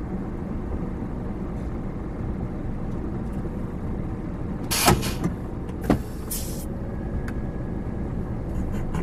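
Scania R450 truck's diesel engine idling with a steady low rumble, with two short sharp noises about five and six seconds in.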